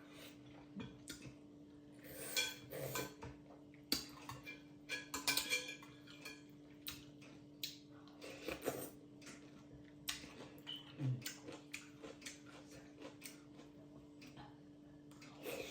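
Utensils clinking and scraping against a bowl or dish during a meal, a series of irregular clicks with a few brief ringing clinks. A faint steady hum runs underneath.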